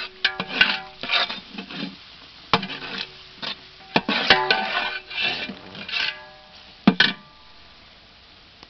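A ladle stirring a thick masala in a large metal pot, scraping through the mixture and knocking against the pot's sides, which ring briefly after each knock. The knocks come irregularly and stop about seven seconds in.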